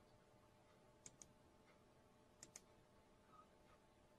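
Near silence with two pairs of faint computer mouse clicks, each a quick double click, about a second and a half apart.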